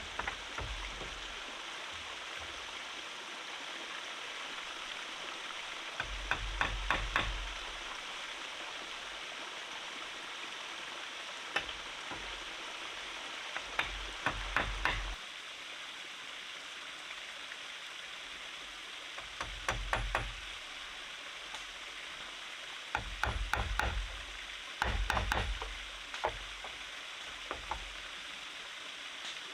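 Short clusters of sharp knocks, a few strokes at a time every few seconds, as hand tools strike wood during building work. Under them is a steady rushing hiss, from a stream.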